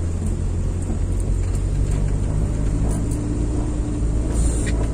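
Steady low rumble of a vehicle's engine and road noise, heard from inside the cabin while driving; a faint steady engine tone comes in about halfway through.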